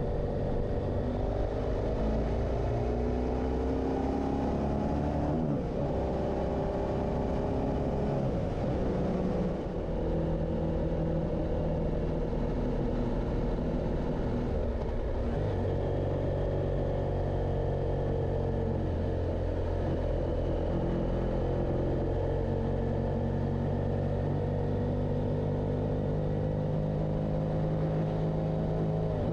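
Motorcycle engine pulling through the gears: its pitch climbs, drops briefly at a shift, climbs again, then holds steady while cruising, with wind noise throughout.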